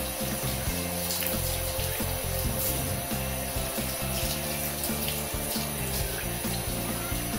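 Handheld shower head spraying water onto a cat's wet fur, a steady hiss of running water as the fur is rinsed. Background music with low bass notes plays underneath.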